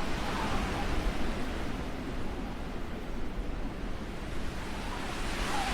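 Steady wind on the microphone: an even rushing hiss with a low rumble underneath.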